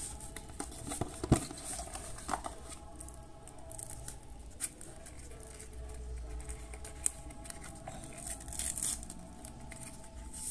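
A cigarette pack being opened by hand: the cellophane wrapper crinkling and the foil-and-paper inner lining tearing. Irregular rustles and sharp crackles, the loudest a little over a second in, with a longer crinkling stretch near the end.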